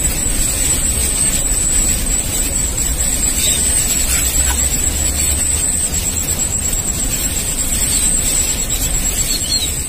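Steady wind noise on the microphone, a continuous low rumble, with a high-pitched insect drone held on one note throughout.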